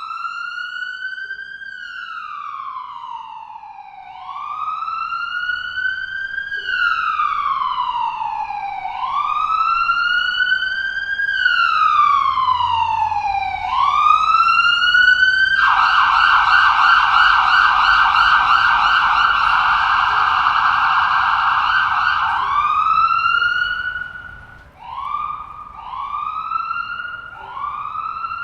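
Ambulance siren in a slow wail, rising and falling about every four and a half seconds and growing louder. About halfway through it switches to a fast yelp for several seconds, then returns to a wail and a few short rising whoops near the end, over a faint low rumble.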